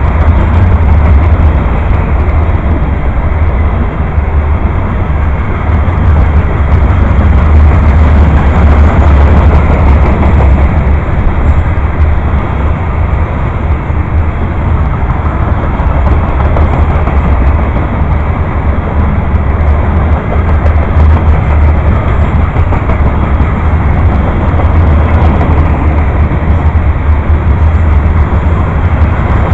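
Covered hopper cars of a CSX freight train rolling past close by: a loud, steady rumble of steel wheels on the rails.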